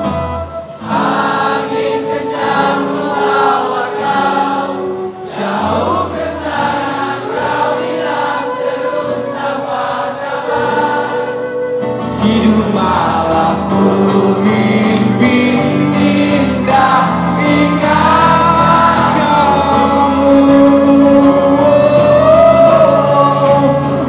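Live acoustic band music: acoustic guitar, flute and cello under singing, heard from within the audience. It grows louder about halfway through.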